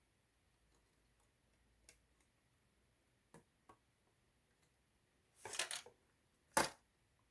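Handling of small parts and tools on a sewing machine's casing during disassembly: a few faint clicks, a brief scratchy rustle about five and a half seconds in, then one sharp click.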